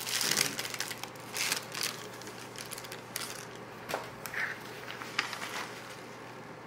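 Plastic piping bag crinkling and rustling as it is handled, in a string of short bursts over a faint steady low hum.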